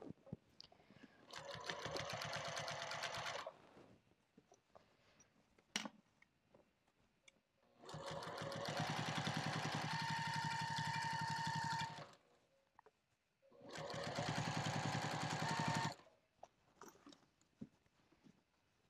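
Sewing machine stitching in three runs, a short one, a longer steady one and another short one, while the binding is sewn around the bag's edge. Small clicks of fabric handling come in the pauses between runs.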